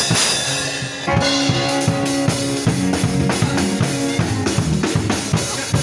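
Acoustic drum kit played in a steady beat of bass drum, snare and toms, opening with a cymbal crash. From about a second in, sustained chords from a backing song run under the drumming.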